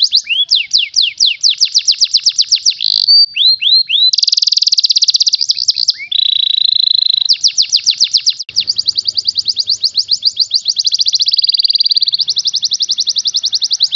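Domestic canary singing a fast, tightly packed song of rapid trills at about ten notes a second, broken by a few downward-slurred notes and a short buzzy note near the middle. It is a tutor ('masteran') song for training other canaries to sing.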